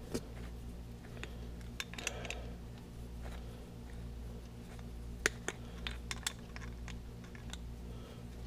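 Scattered small clicks and taps of pliers on metal as a snapped seat clamp bolt is worked out of a Zipp 2001 seat post, over a steady low hum. The sharpest click comes a little past halfway.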